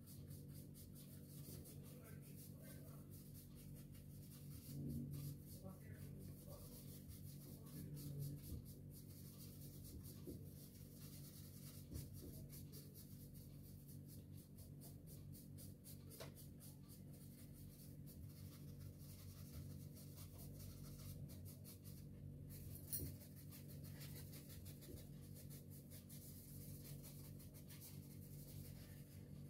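Faint scratching of colour strokes being drawn across paper, shading in a sky, over a low steady hum.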